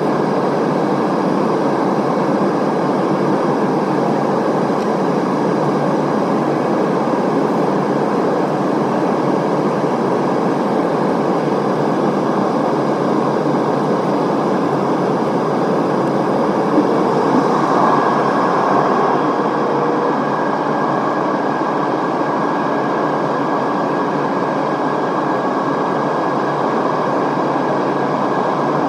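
Steady cabin noise inside an Airbus A320neo descending on approach: a constant rush of air and engine drone, swelling slightly a little over halfway through.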